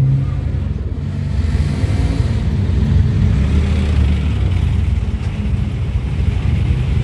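Motor tricycle's engine running under way, heard from inside the passenger cabin over road and traffic noise. The pitch shifts slightly as it changes speed.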